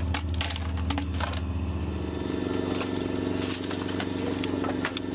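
A vehicle engine running steadily, with scattered metallic clicks and knocks from 35 mm cannon rounds and ammunition boxes being handled.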